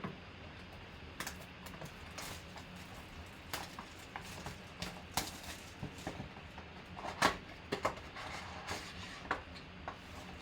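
Trading card box and packs being opened and handled: scattered clicks and rustles of cardboard and wrapping, the loudest click about seven seconds in.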